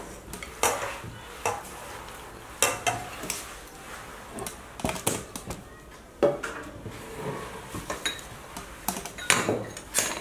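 Bowls and spoons being handled in a kitchen: irregular clinks and knocks of crockery and metal utensils.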